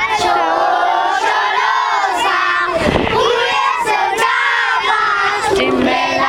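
A crowd of young children shouting and calling out over one another, many voices at once with no pause.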